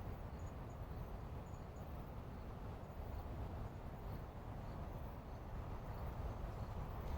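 Distant helicopter: a steady low rotor rumble, with a few faint high chirps in the first two seconds.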